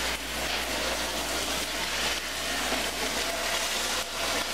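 Kitchen tap running steadily into a stainless-steel sink. About four seconds in, after a brief dip, it gives way to a pot of water boiling with lasagna noodles.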